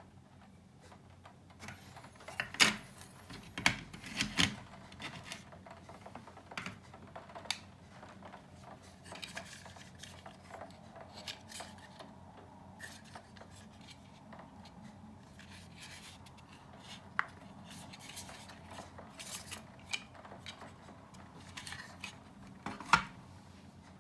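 Hands handling small hard parts during an electronics disassembly: scattered clicks, taps and light rubbing, with a few sharper knocks about two and a half seconds in, around four seconds in, and near the end.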